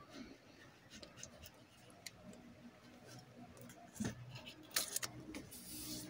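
Faint scattered clicks and ticks of hands working a crankshaft rear main seal carrier onto the engine block and pulling its white plastic fitting sleeve off the crankshaft. The sharper clicks come about four and five seconds in.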